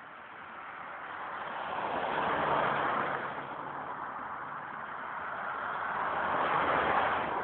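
Road vehicles passing on a snowy road, each a rushing swell of engine and tyre noise: one goes by about two and a half seconds in, then a minibus approaches and passes near the end.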